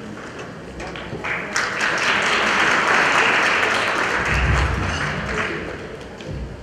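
Audience applauding, swelling about a second and a half in and dying away toward the end, with a few low thumps about four seconds in.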